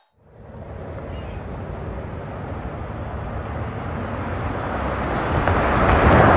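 A Ford F-150 pickup with a 3.5L EcoBoost V6 approaching and driving past, engine rumble and tyre noise growing steadily louder and loudest near the end as it goes by.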